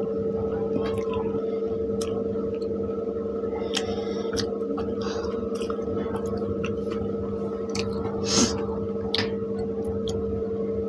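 Close-miked mukbang eating of pav bhaji: wet squishing and chewing of soft bread rolls soaked in bhaji, with small clicks and mouth smacks, over a steady hum. A sharper knock comes about eight seconds in.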